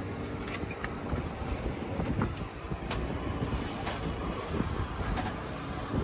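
Cab door and step of a JCB 3DX backhoe loader giving a few light clicks and knocks as the operator climbs in, over a steady low rumble.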